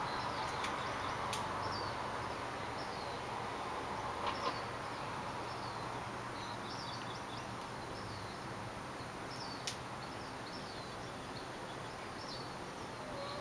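Outdoor ambience: a steady background hiss with small birds chirping again and again in short high notes, and a few faint sharp clicks.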